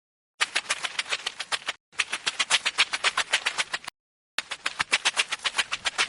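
Rapid clicking of LEGO bricks snapping together, in three runs of about ten clicks a second with short silent gaps between them.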